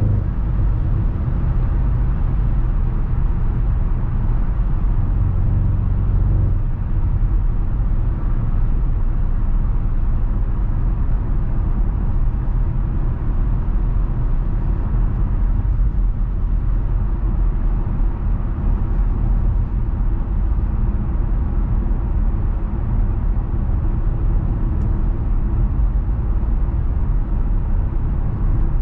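2015 Audi RS6 Avant's twin-turbo V8 running under steady driving, mixed with tyre and road noise. The engine's pitched note fades about six seconds in, leaving a steady rumble.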